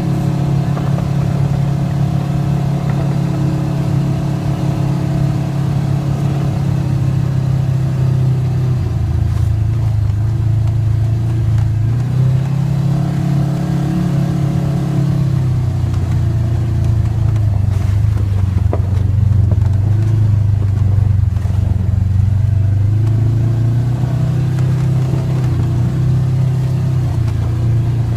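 ATV engine running steadily under a rider, its pitch falling and rising several times as the throttle changes.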